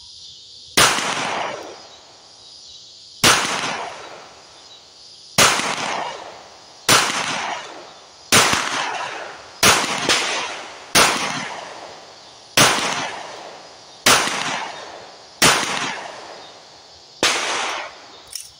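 Pistol fired in a slow string of single shots, one to two seconds apart, each sharp crack trailing off in a long echo across the range.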